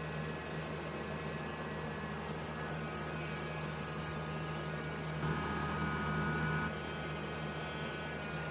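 HARDELL mini cordless 3.7 V rotary tool's small motor running steadily with a whine. About five seconds in it briefly gets a little louder, with an extra higher tone, for over a second before settling back.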